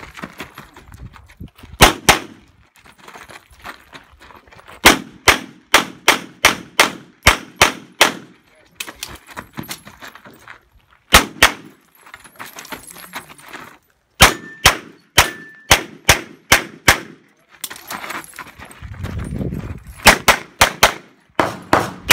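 Rapid handgun fire during a USPSA Production stage run: sharp pistol shots in fast strings, mostly pairs, broken by short pauses while the shooter moves. A couple of hits about two-thirds through are followed by a brief ring of steel, and between strings there is scuffing of shoes on gravel.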